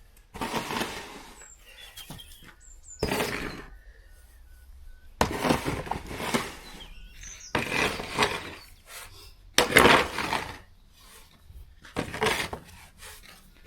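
Crunching and scraping in snow, in about seven separate strokes each around a second long, roughly one every one to two seconds.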